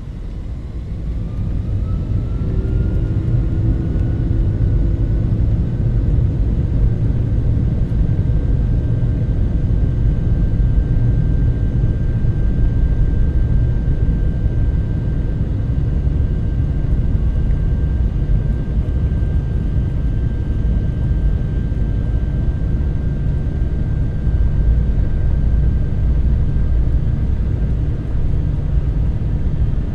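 Boeing 757's twin turbofan engines heard from inside the cabin at takeoff, spooling up to takeoff thrust. A whine rises in pitch over the first few seconds, then holds steady over a loud, steady low rumble.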